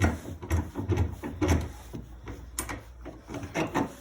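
A run of small clicks and knocks, several a second, as wooden pen-kit parts are handled and the end cap is pushed onto the pen.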